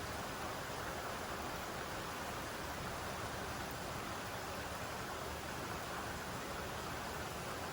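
Steady rain falling, an even hiss with no single drops or knocks standing out.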